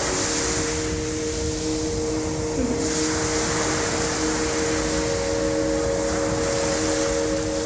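Ambient background music: a couple of sustained held tones over a steady rushing noise that swells about three seconds in.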